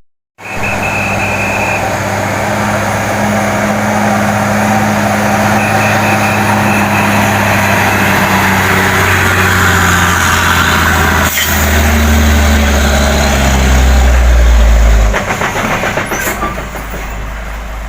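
Large diesel bus engine running close by, its deep hum building until it drops away suddenly about three seconds before the end. There is a single sharp click partway through.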